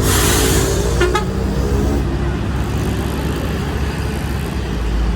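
A large road vehicle, most likely a bus, passes close by. A rush of tyre and wind noise fills the first second, then settles into a steady engine and traffic rumble.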